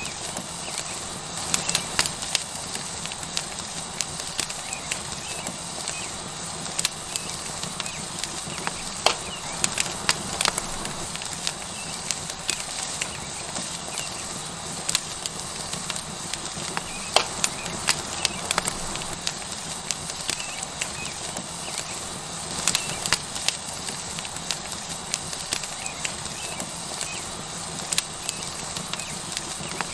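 Tomahawk steak sizzling on a hot stone over a wood fire: a steady hiss with frequent sharp crackles and pops from the burning wood.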